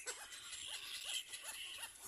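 Little black cormorant chicks in the nest calling in a quick series of short rising-and-falling cries, about three a second, with a hissing sound in the middle.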